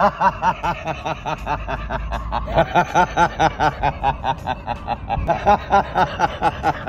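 A man laughing in a long, unbroken run of rapid pitched 'ha-ha' pulses, about five a second.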